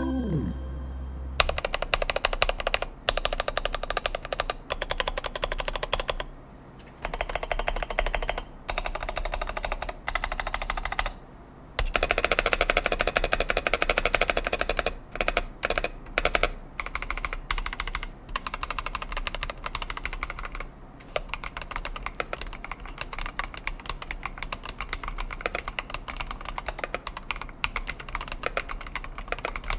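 Epomaker TH80-X mechanical keyboard with Epomaker Flamingo linear switches being typed on quickly: a dense run of keystrokes with a few short pauses.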